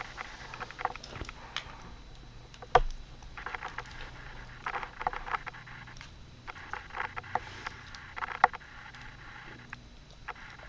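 Scattered light clicks, small knocks and rustling, like handling and shuffling noise, with a sharper knock a little under three seconds in and another about eight and a half seconds in.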